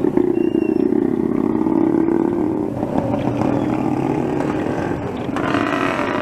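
A motor vehicle engine running steadily close by, amid street noise. A broader hiss swells about five seconds in.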